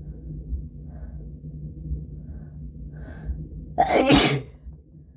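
A person's induced sneeze: a few short breaths building up, then one loud sneeze about four seconds in.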